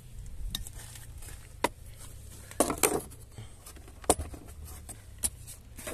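Hard plastic tool case and loose metal drill bits being handled: a handful of separate clicks and knocks, the loudest a quick cluster about two and a half seconds in.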